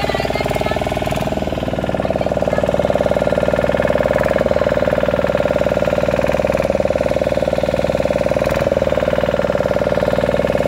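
A motorboat's engine running steadily with a fast, even beat, heard from on board the boat.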